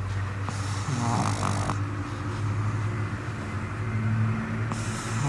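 A sleeping pug snoring: a low steady drone broken by two louder, rattling breaths, one about a second in and one near the end.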